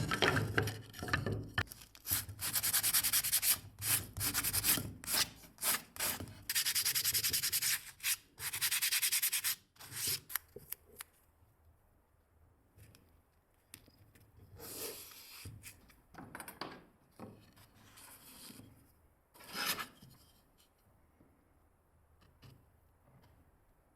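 Hand sanding: an abrasive rubbed back and forth in quick strokes, loud and nearly continuous for about the first ten seconds, then fainter, scattered strokes.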